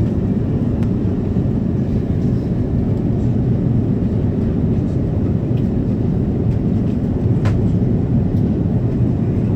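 Steady cabin noise of an airliner on approach: a constant low rumble of engines and airflow. A faint click comes about seven seconds in.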